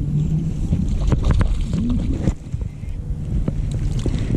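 Wind buffeting the microphone over water sloshing against a kayak, with a few short splashes and clicks, as a hooked bass is fought beside the boat.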